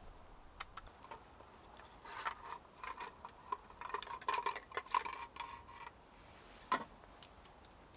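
Light clicks and clinks of a pack of reciprocating saw blades being handled, with scattered ticks through the middle few seconds and one sharper click near the end.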